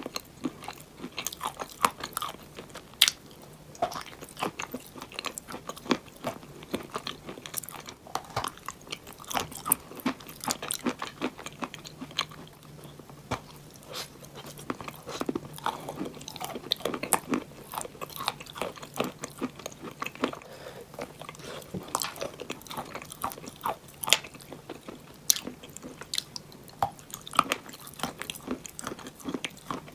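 Close-miked crunching of edible chalk being bitten and chewed: dense, irregular sharp crunches and cracks, with a bite every second or so.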